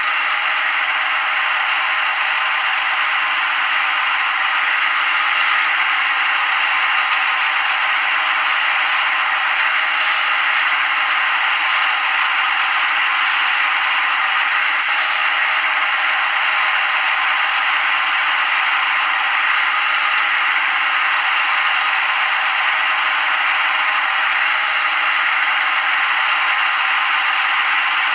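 CNC lathe simulator's machining sound effect as the simulated tool cuts a groove: a steady scraping hiss that runs on without a break.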